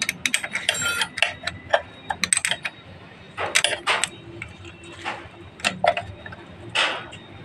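Irregular metallic clicks and rattles of a hand tool tightening the valve tappet adjuster on a Bajaj Discover motorcycle's cylinder head, with a few louder bursts along the way.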